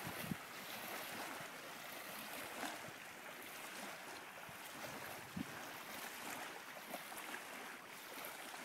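Small waves lapping and splashing at a lake shore in the wind, a steady wash of water with many little splashes. A couple of low thumps of wind on the microphone.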